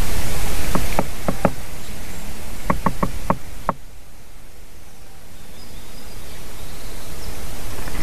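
Juvenile great spotted woodpecker pecking at the camera lens with its bill: two quick series of sharp knocks, four and then five, over a steady hiss.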